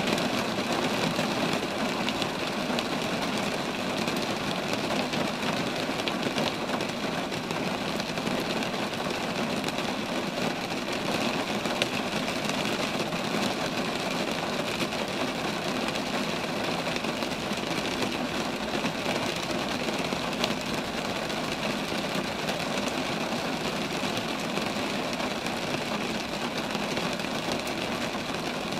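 Steady rain falling among roadside trees, an even hiss of countless drops that holds level throughout.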